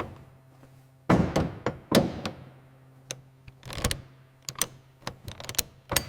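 A series of about a dozen sharp knocks and clunks at irregular spacing over a faint steady hum, the loudest ones a second or two in.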